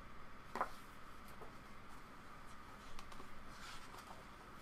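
Faint rustling of paper pages being turned in a printed user manual, with a light tap about half a second in.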